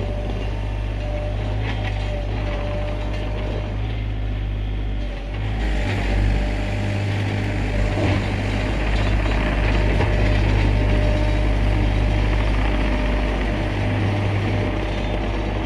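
Sany SY35U mini excavator's diesel engine running steadily, getting louder and fuller about five seconds in as the machine comes under load.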